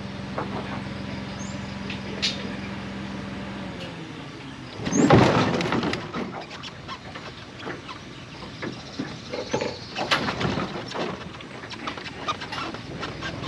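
A steady motor hum that stops about four seconds in, followed by one loud clattering knock and scattered knocks and bumps.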